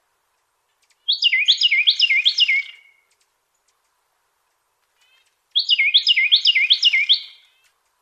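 Carolina wren singing: two songs a few seconds apart, each a quick run of about five repeated phrases that fall in pitch.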